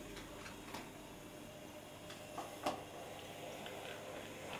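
OO gauge Hattons P class model locomotive running along the track: a faint steady running sound with a few light, irregular clicks from the wheels on the rails.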